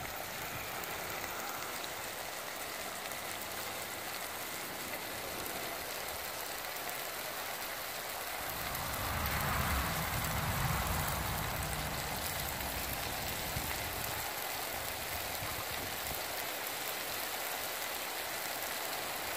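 Sliced onions, peppers and tomato frying in oil in a cast-iron pot over a wood fire: a steady sizzling hiss. A low rumble swells and fades in the middle.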